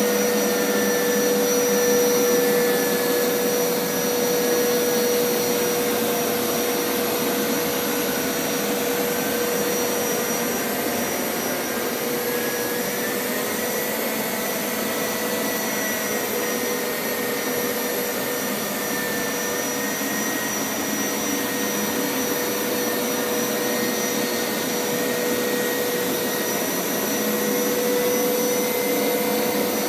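Hoover Power Scrub Elite carpet washer running steadily, its motor giving a continuous whine with a steady pitch, swelling slightly louder near the start and near the end.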